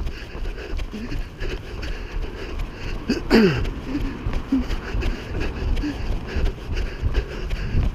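Wind buffeting the microphone of a camera carried on a run, with regular faint thuds of running footsteps. About three seconds in, one short call slides sharply down in pitch.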